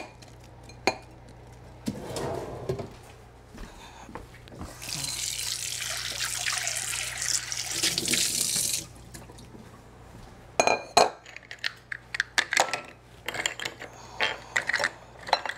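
A kitchen tap running for about four seconds as quahog shells are rinsed at the sink. It is followed by a quick run of sharp clicks and knocks as the hard clam shells are handled and knocked together, louder than the water. There are a few light knocks near the start.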